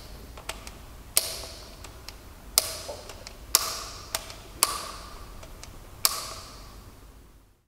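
Rotating head of an AGP PF8 press fitting tool being turned by hand and snapping into its 45-degree detents: a series of sharp clicks about a second apart.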